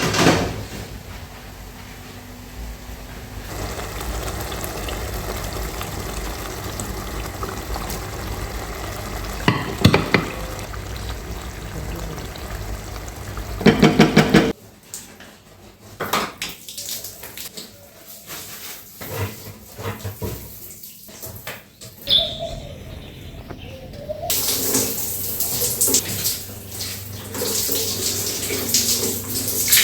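Kitchen work sounds: dishes and utensils clinking and knocking, with a rapid rattle about halfway through. Near the end a tap runs for a few seconds into a sink.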